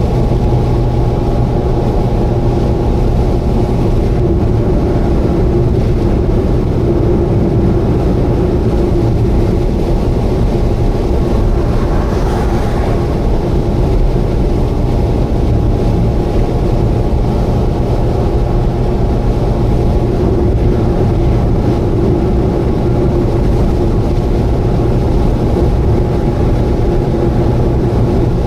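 Subaru Vivio KK3 with its small four-cylinder engine cruising at a steady speed on an expressway, a constant engine drone over tyre and road rumble. About twelve seconds in there is a brief swell of rushing noise.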